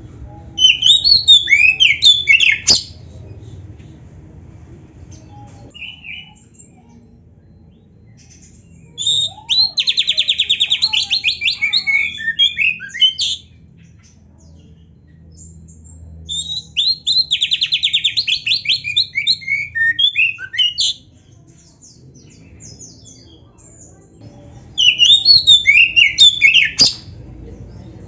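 Oriental magpie-robin (kacer) singing loudly in four separate phrases of quick, varied whistles, near the start, about 9 s in, about 16 s in and about 25 s in. The middle two phrases each carry a fast, evenly repeated rattling trill.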